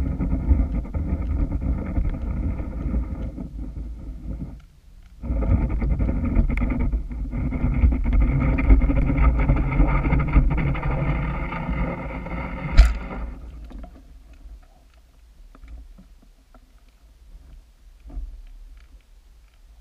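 A motor's steady pitched hum heard underwater. It cuts out for about a second around four and a half seconds in, comes back, gives one sharp click, then fades away about fourteen seconds in.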